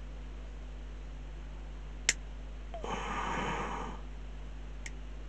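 A sharp snip of hobby side cutters cutting a small plastic part off its sprue about two seconds in, then a sniff lasting about a second, and a faint click near the end.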